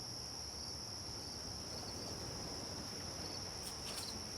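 Quiet background nature ambience: a steady, high-pitched insect chorus like crickets over a faint, even low wash of noise.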